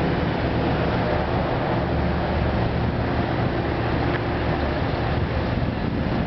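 Steady low rumble of vehicle noise with a faint hum, unchanging throughout.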